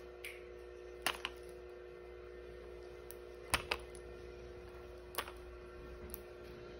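Scattered small clicks and taps, some in quick pairs, from a child handling the plastic and foil packaging of a Mighty Beanz toy while trying to open it, over a steady hum.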